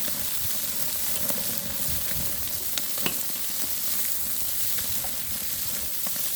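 Food sizzling steadily as it cooks, with a few faint clicks and taps.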